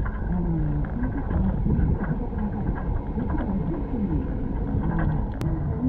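Steady low rumble of a moving double-decker bus heard from its open top deck, with wind buffeting the microphone. A single sharp click near the end.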